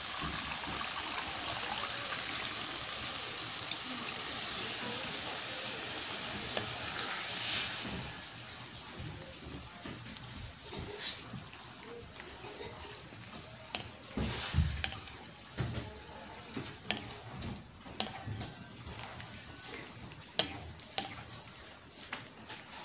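Sizzling of water poured into a hot pan of sautéed onion, garlic and tomato, loud at first and fading away over several seconds. Then a wooden spatula stirring the sauce, with scattered knocks and scrapes against the pan.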